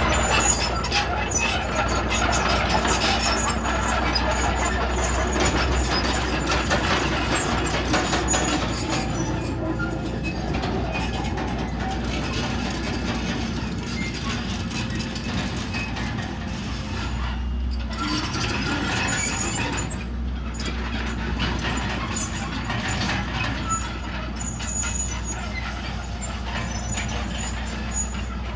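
Komatsu D31PX crawler bulldozer working, its diesel engine running steadily with many short metallic clanks and rattles from the machine.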